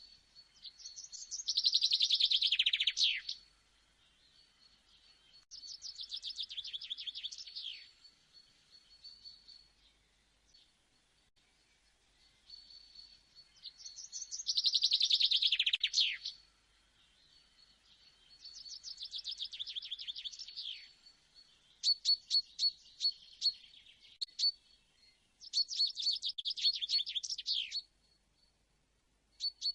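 A songbird singing: about six rapid trilled phrases of two to three seconds each, several ending in a quick downward sweep, with pauses of a few seconds between them.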